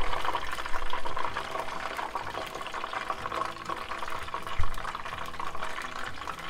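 Hot oil bubbling and crackling in a deep-fry pot around beer-battered cod pieces, golden brown and done. A single sharp click about four and a half seconds in.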